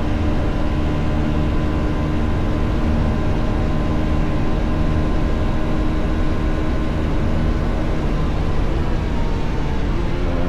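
Bajaj Pulsar NS400Z motorcycle engine running at a steady cruise, with heavy wind and road rumble on the microphone. The engine note dips slightly near the end and then changes, as with a throttle or gear change.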